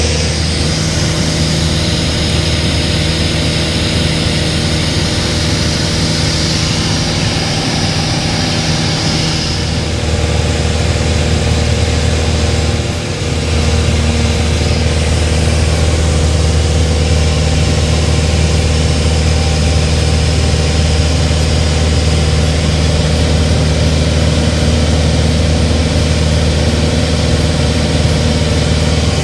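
Light single-engine propeller plane's piston engine and propeller running steadily at cruise, heard from inside the cabin, with a brief dip in level about halfway through.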